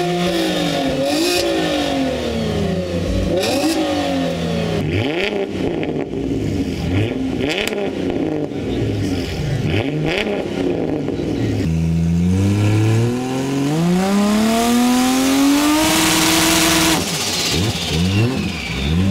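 Car engines revved hard one after another through their exhausts: a Chevrolet Camaro and a Ford Mustang blipping the throttle in quick repeated revs. Then about two-thirds of the way through, one engine is held in a long climb to high revs for several seconds before dropping back sharply, and short revs follow.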